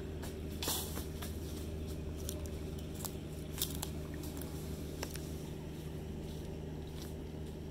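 Scattered light splashes and sloshing of river water as a man wades through it gathering in a cast net, over a steady low hum.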